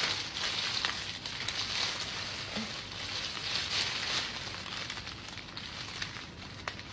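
Clear plastic oven roasting bag crinkling and rustling steadily as gloved hands gather and twist it shut around marinated chicken.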